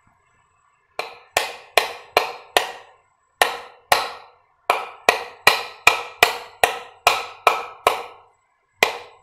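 A new 6201 ball bearing being tapped into its seat in a ceiling fan's metal bottom cover with repeated sharp blows, about two or three a second, in short runs with brief pauses. The cover rings briefly after each blow.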